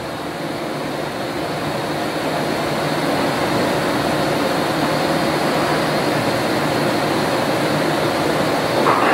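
Steady machine noise, a low hum under an airy rush, growing louder over the first few seconds and then holding.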